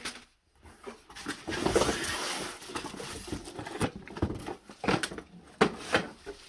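Vacuum cleaner parts and packaging being lifted out of a cardboard box: irregular rustling with several sharp knocks and taps of hard plastic, the loudest in the second half.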